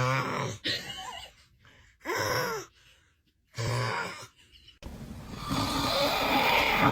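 A man snoring: four short voiced snorts in the first four seconds, some with a pitch that rises and falls, then a longer noisy snore from about five seconds in that grows louder.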